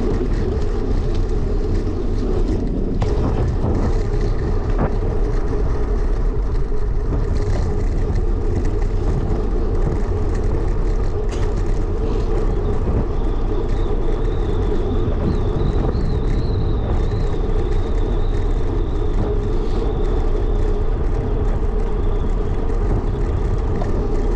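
Steady low wind rumble on the microphone of a camera riding along on a bicycle, mixed with city road traffic.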